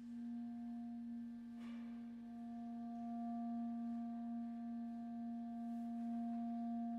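A single soft note held steadily by the chamber ensemble, pure in tone, opening the piece. A higher held tone joins about one and a half seconds in, and both sustain without change.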